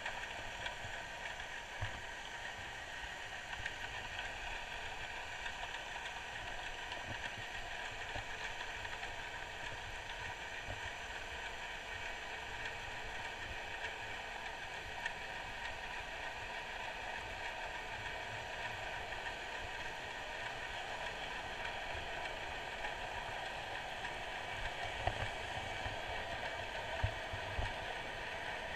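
Underwater ambience picked up by a camera in its waterproof housing: a steady muffled hiss with faint humming tones in it, and scattered low knocks that come more often near the end.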